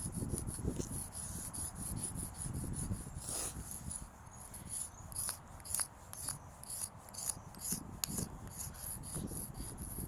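Stick of chalk scraping across pavement in quick, repeated strokes, about three a second, as an area is coloured in. Wind rumbles on the microphone underneath.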